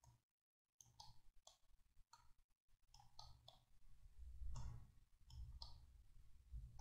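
Faint, irregular clicking from a computer mouse, many short clicks over a low hum.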